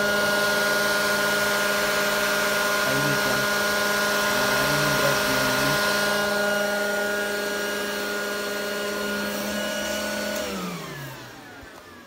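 Cooling fans of an enclosed GPU mining rig case whirring steadily, a hum of several steady tones over an airy hiss. Near the end the pitch slides down and the sound fades as the fans slow.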